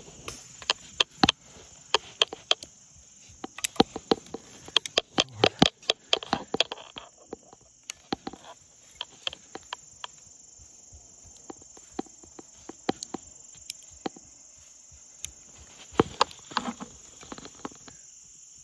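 A white-tailed buck, just hit by an arrow, running off through the leaf litter and brush: a fast string of hoof thuds and crackling snaps for the first several seconds, thinning to scattered snaps, with another short flurry near the end. A steady high insect trill runs underneath.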